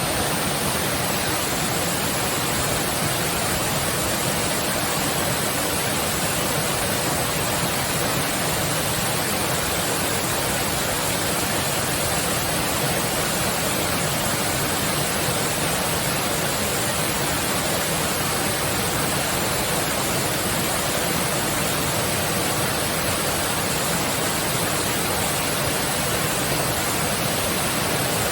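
A two-tiered waterfall about 10 m high with a heavy flow of water, pouring down in a steady, loud rush.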